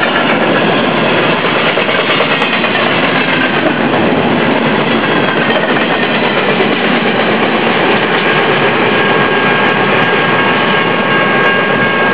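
Empty baretable freight cars rolling past on steel wheels, a steady loud rumble and clatter of wheels on rail. From about two-thirds of the way in, a thin, steady high squeal joins it.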